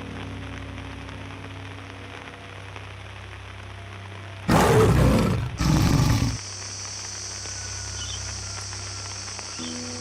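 A tiger roaring twice in quick succession about halfway through, loud over a steady patter of rain and a low, sustained music drone.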